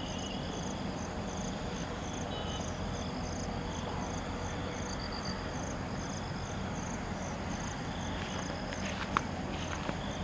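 Insects calling: a high cricket-like chirp repeating about twice a second over a steady high insect hum, with a low background rumble. A single sharp click comes about nine seconds in.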